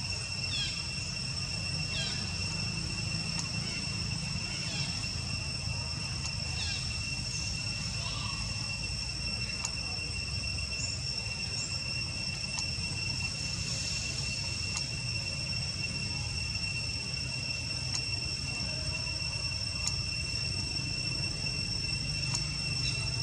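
Outdoor ambience: a steady high insect drone over a low rumble, with faint short squeaks every second or two.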